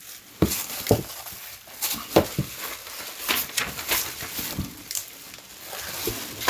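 Packaging being handled as a replacement laptop LCD screen is unpacked: irregular crinkling and rustling with scattered light clicks and knocks.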